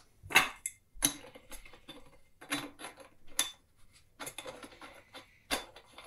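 Scattered clicks and knocks of PVC pipe fittings and a pressure gauge on a brass fitting being handled and held together in a dry fit. The sharpest knock comes about half a second in.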